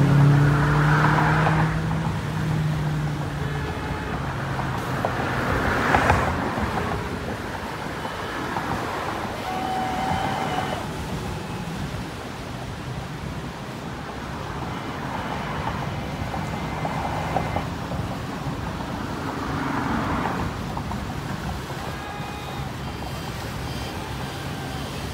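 Boat engines running in a large parade of motorboats: a steady drone with recurring swells as boats pass, and one close engine's low hum fading out in the first few seconds.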